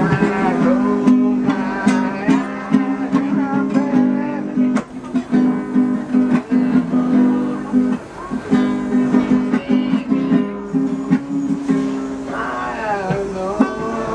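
Nylon-string classical guitar playing chords, strummed steadily, with a man's singing voice coming in near the end.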